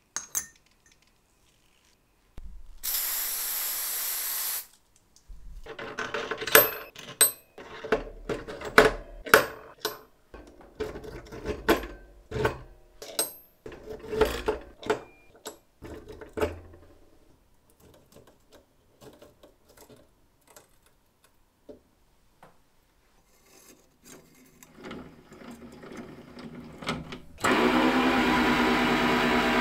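Small metal parts of a mechanical horse-racing game's rod-and-gear mechanism clicking and knocking as they are handled and fitted, a quick series of sharp knocks lasting about ten seconds, after a brief burst of hiss. Near the end a metal lathe starts up and runs steadily with a brass part turning in its chuck.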